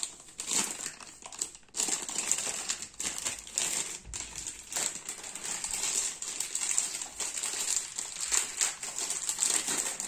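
Thin plastic packaging bag crinkling and rustling in dense, irregular crackles as hands grip it and pull at it to tear it open, with brief pauses about two and four seconds in.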